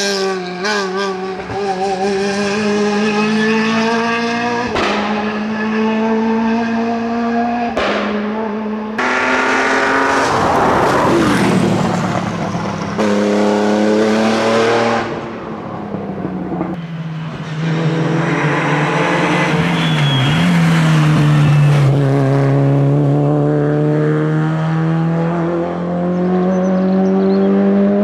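Rally cars at full throttle on a tarmac stage, one after another, among them a Porsche 911: engines revving up through the gears with repeated upshifts. The sound changes abruptly several times as one car gives way to the next.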